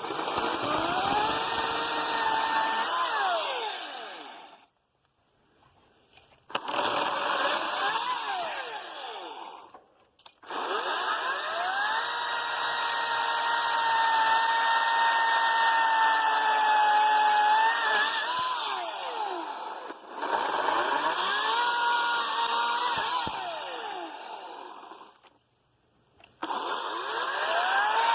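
Ryobi 40V 14-inch battery chainsaw cutting through wood, its electric motor and chain whining in several runs with short stops between, each run spinning up, holding and then winding down.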